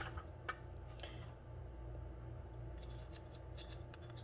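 A metal spoon faintly scraping and clicking against a small ceramic dish as honey is scraped out of it into a larger bowl, over a low steady hum.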